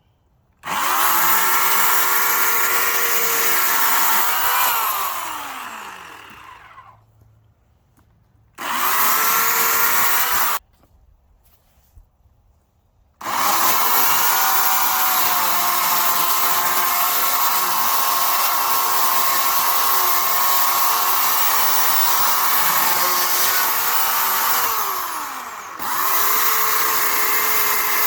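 Oregon CS1400 corded electric chainsaw's 15-amp motor running in bursts with a steady whine. It whines up to speed, runs about four seconds, then spins down with falling pitch. A short two-second burst cuts off suddenly, followed by a pause. Then a long run with a brief spin-down and spin-up near the end.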